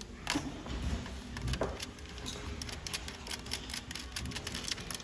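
Clicks and light knocks from hand tools at work: two sharper knocks in the first two seconds, then a fast, uneven run of small clicks.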